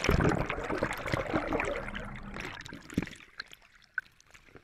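Lake water churning and gurgling right against the microphone as the camera on the landing net dips under the surface next to a netted salmon. It starts suddenly and loud, then dies away over about two and a half seconds, followed by a few small knocks and drips.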